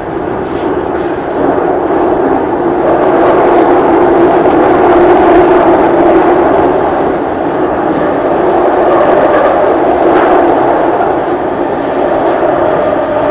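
Singapore MRT train running between stations, heard from inside the passenger car: a steady rumble and hum of wheels on rails and traction motors, growing louder over the first few seconds.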